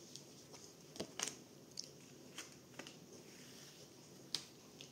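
Tarot cards being picked up off a cloth and gathered into a stack by hand: faint rustling with a few scattered sharp clicks of card on card, the sharpest near the end.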